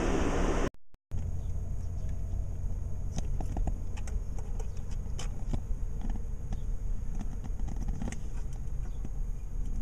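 A steady low rumble with scattered light clicks and ticks over it; the sound drops out briefly about a second in.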